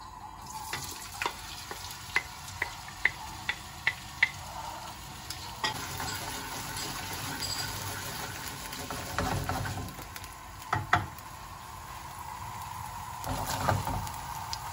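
Diced potatoes sizzling in hot oil in a non-stick frying pan while a wooden spoon stirs them. About eight sharp taps come in the first few seconds as the potatoes go in, and the spoon knocks against the pan a few times later on.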